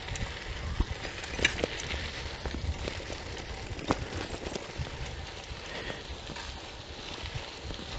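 Bicycle riding over a rough dirt road: tyres crunching on grit, with a low rumble and scattered rattles and knocks as it jolts over bumps.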